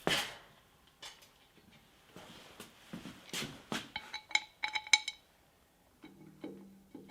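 Metal parts and tools being handled: light knocks and taps, then a quick run of ringing metallic clinks about four to five seconds in.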